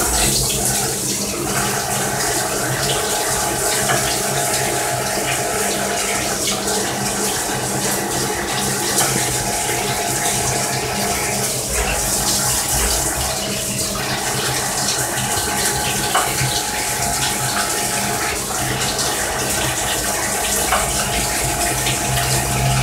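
CNC slant-bed lathe running with its coolant jet spraying over the chuck and turret: a steady hiss of coolant over the steady hum and whine of the machine. The machine tones dip briefly twice near the middle.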